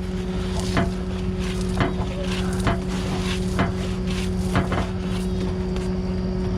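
A truck engine running at a steady speed, with irregular sharp clicks and knocks over it, about one or two a second.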